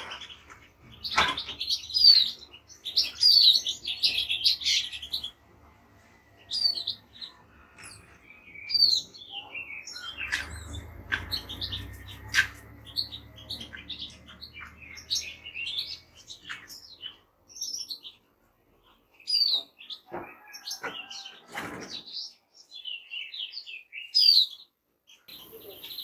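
A chorus of finches, a European goldfinch among them, with greenfinch and siskin, twittering and chirping in quick high bursts of notes. The calls are busiest in the first few seconds and more scattered after, with two brief lulls.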